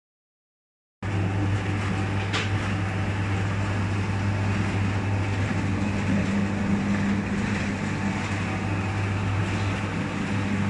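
TYPE-65-2 round-bun (mantou) forming machine running: a steady low hum with an even mechanical whir, starting suddenly about a second in, with one brief click a little after.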